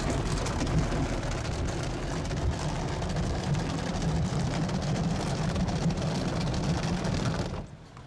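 Automatic car wash working over a car, heard from inside the cabin: a steady rush of water spray and machinery drumming on the body, with a heavy low rumble. It cuts off shortly before the end.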